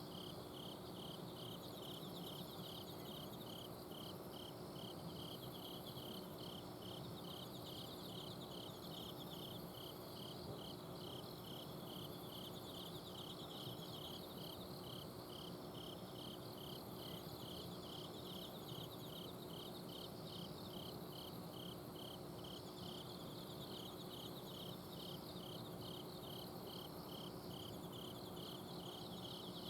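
Night chorus of autumn insects: a cricket chirping in regular pulses about twice a second, with fainter, higher trills from other insects behind it. Under it runs a steady low hum from an air conditioner's outdoor unit.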